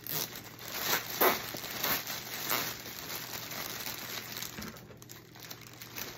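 Clear cellophane gift-basket wrap crinkling as it is bunched together and cinched with a zip tie, with several louder rustles in the first few seconds that then quieten.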